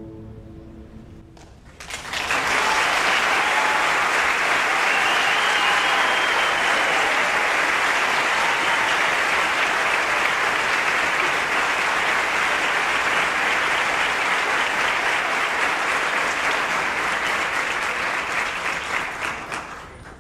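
The last chord of a guitar orchestra rings and dies away. About two seconds in, an audience bursts into loud, steady applause, which fades out near the end.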